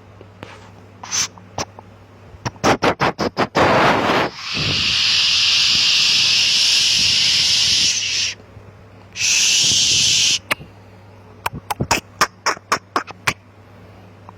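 Runs of sharp clicks and taps, then a steady hiss lasting about four seconds, a shorter second hiss, and another run of clicks, all over a constant low hum.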